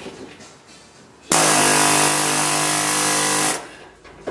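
Pneumatic air hammer with a screwdriver bit, run in one steady burst of a little over two seconds starting about a second in, hammering at a rust-fused Phillips screw; the burst strips the screw head.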